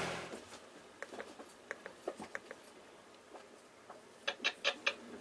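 Faint scattered ticks and taps over a quiet background, then a quick run of four or five sharper clicks a little past four seconds in.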